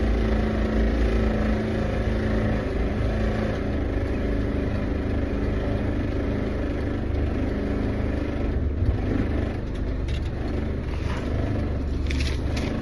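Motor vehicle running steadily: a low engine hum with road noise, with a few light clicks near the end.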